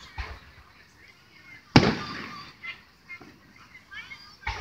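Aerial firework shells bursting in the distance: one loud boom a little under two seconds in that rumbles away as it echoes, with fainter thuds near the start and just before the end.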